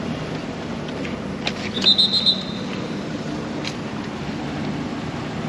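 Steady road-traffic hum with a few sharp clicks, and a brief high-pitched chirp about two seconds in.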